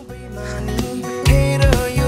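Background music laid over the footage, getting louder about a second in.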